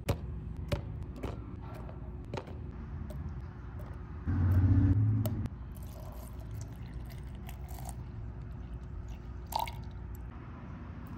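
Strawberry and banana slices dropping into a plastic blender cup with a few sharp taps, then the wet, dripping sounds of milk being added. About four seconds in, a loud low hum lasts roughly a second and is the loudest sound.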